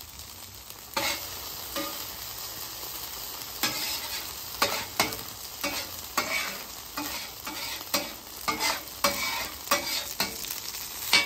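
Ghee and chorizo sizzling on a hot steel flat-top griddle while a metal spatula scrapes and spreads across the cooktop. The scraping comes in repeated irregular strokes, busier and louder in the second half.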